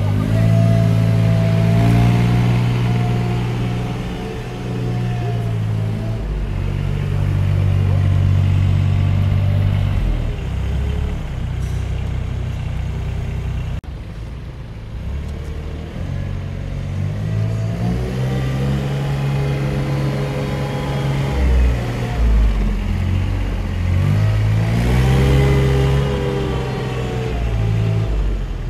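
Thwaites Mach 201 one-tonne mini dumper's diesel engine running as the machine is driven, revving up and easing back several times, with a lower, quieter stretch in the middle.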